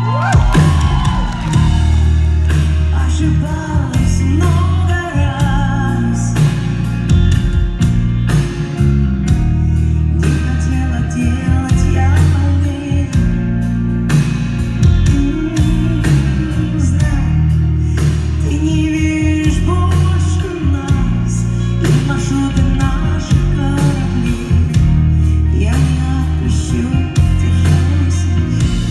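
A pop-rock song performed live: a woman singing over a band, with a heavy bass line, a steady drum beat and guitar.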